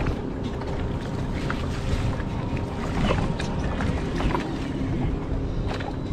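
Wind buffeting the action-camera microphone over water noise against the skiff, with short splashes from a hooked red drum thrashing at the surface beside the boat.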